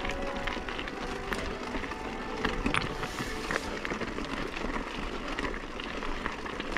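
Mountain bike rolling over a rocky dirt singletrack: tyres crunching on loose stones under a steady rushing noise, with frequent small clicks and rattles from the bike jolting over the rocks.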